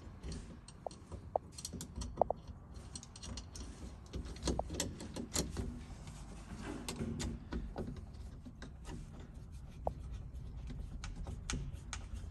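Small metal parts of a door latching mechanism clicking and clinking as they are fitted by hand, with a few short metallic pings, over a steady low hum.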